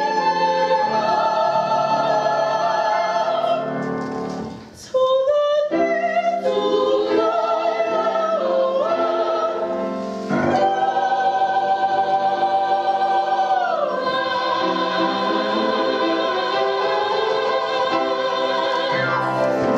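Female soprano singing an operetta number in full operatic voice, backed by a chorus and piano. She breaks off briefly about five seconds in, then sings on and holds one long note through most of the second half.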